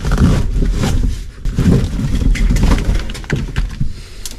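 Rear bench seat bottom of a car being pulled up and out: the seat cushion and its springs rub, creak and knock irregularly as it is hauled free.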